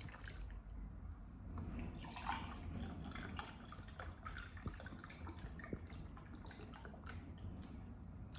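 Milk poured from a glass jug splashing faintly over chopped peaches in a plastic tub over the first few seconds, followed by a few faint drips.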